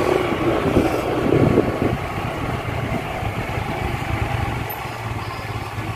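Motorcycle engine running at low speed, a steady low putter, with a louder rush of noise in the first couple of seconds.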